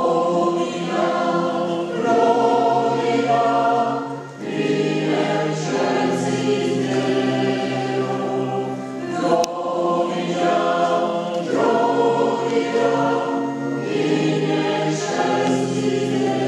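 Church choir singing a sacred song together in several held phrases, with short breaths between them.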